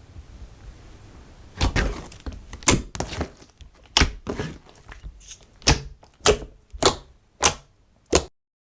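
Slime being pressed and poked, making about ten sharp clicking pops, one every half second to a second, which stop abruptly near the end.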